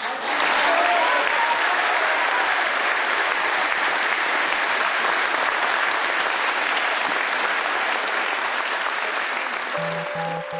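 A large crowd applauding steadily, easing off slightly near the end. Music comes in during the last second.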